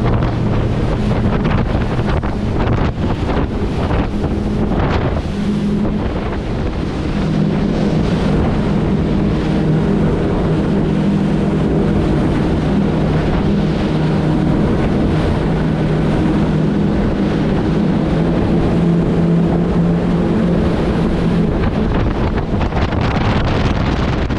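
Boat engine running steadily under way, a constant low drone under rushing water and wind buffeting the microphone.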